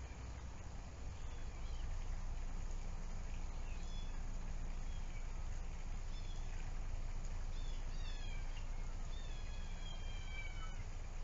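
A kitten meowing several times, high calls that fall in pitch, the longest drawn out near the end, over a steady low rumble.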